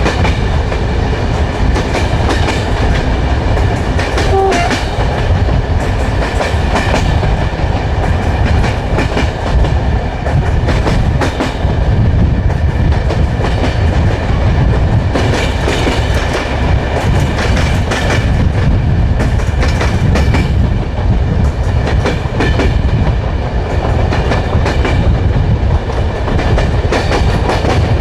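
Train wheels running at speed over the rails: a steady heavy rumble with a continual clickety-clack of clicks from the rail joints.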